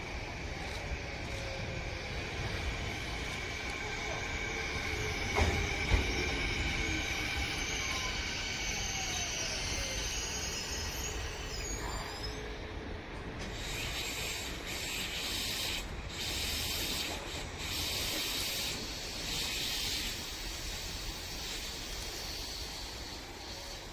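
Sanyo Electric Railway train moving along the rails through the station. A steady high squeal with sliding tones runs through the first half, with a couple of knocks about six seconds in. From about the middle it gives way to a hissing rush of rail noise.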